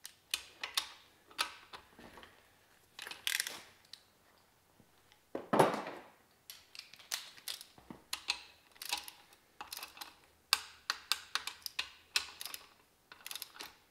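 Ratchet wrench clicking in short bursts as the BMW M52 engine's main bearing cap bolts are turned through their final angle-tightening step. One louder, longer noise comes about five and a half seconds in.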